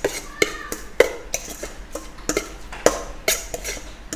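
Metal spoon stirring a seasoning mix in a stainless steel mixing bowl: irregular clinks and scrapes of metal on metal, two or three a second, some leaving the bowl briefly ringing.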